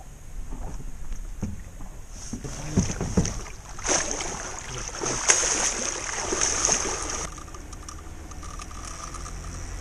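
Large hooked wels catfish splashing and churning the water at the surface beside the boat, a loud wash of water noise lasting about three seconds.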